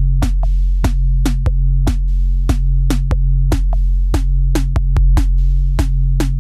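Background electronic music: a drum-machine beat over a sustained bass.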